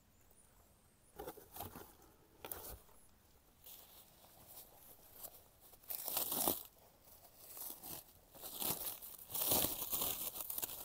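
Wrapping around mail-order rose seedlings being handled and pulled open by hand: irregular bursts of crinkling and rustling starting about a second in, loudest around six and nine and a half seconds.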